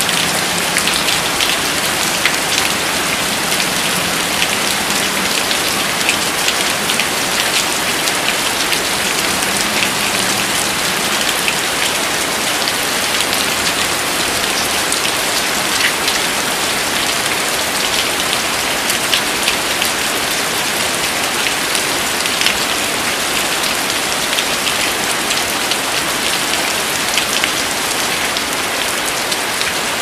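Steady rain falling: an even hiss with individual drops ticking sharply here and there.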